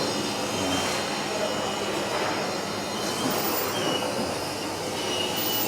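Steady background din of a factory assembly line, with a few brief high-pitched squeaks.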